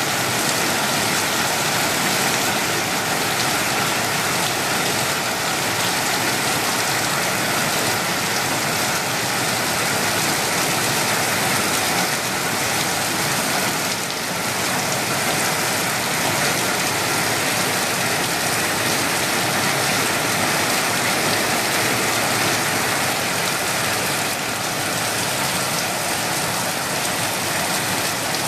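Heavy monsoon rain falling steadily.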